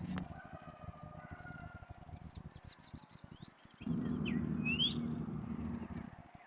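Wild birds chirping in short high calls, one sweeping upward about five seconds in. A steady low hum comes in about four seconds in and stops about two seconds later, loudest of all.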